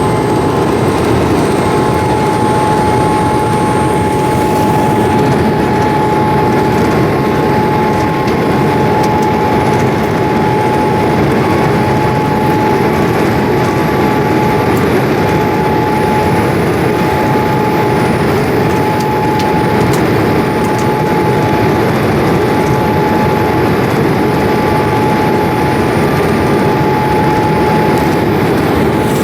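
Steady cabin noise of a Boeing 787-8 airliner, a constant rush of engine and airflow heard from inside the passenger cabin, with a thin steady whine on top.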